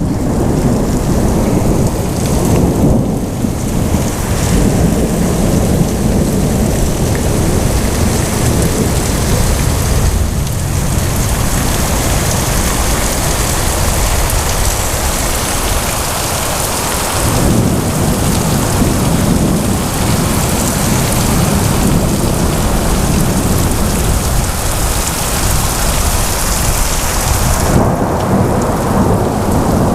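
Heavy thunderstorm: steady downpour of rain with thunder rumbling low and almost continuously underneath.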